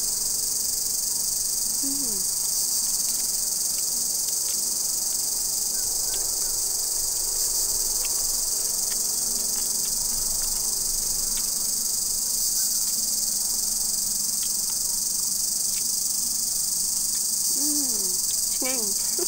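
Steady, high-pitched chorus of forest insects, unbroken throughout. A brief murmur of a voice comes about two seconds in and again near the end.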